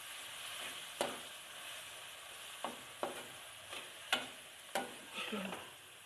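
Onions, tomatoes and spices frying in oil in an aluminium pot with a steady sizzle, while a metal spoon stirs and scrapes through them, knocking sharply against the pot about six times.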